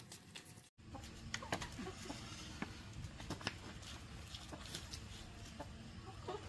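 Chickens clucking, with scattered light clicks and taps.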